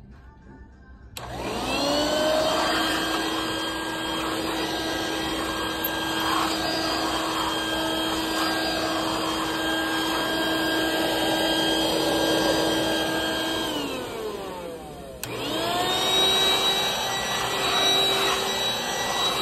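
Hoover stick vacuum's motor switched on, whining up to a steady pitch and running. About 14 seconds in it is switched off and winds down with falling pitch, then is switched on again a second later and runs on.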